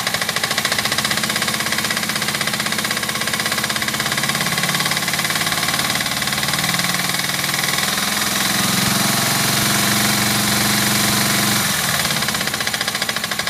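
Suzuki GS500F's air-cooled parallel-twin engine idling with a rhythmic knock. It is revved up in two steps from about four seconds in and runs smoother and louder, then drops back to idle with the knock returning near the end; the knock is one that stops past 2,000 rpm.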